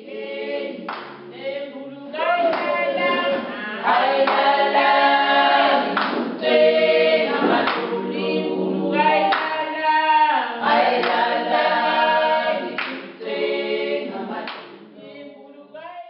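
A group of voices singing together in harmony without instruments, with hand claps. It grows louder about two seconds in and fades away near the end.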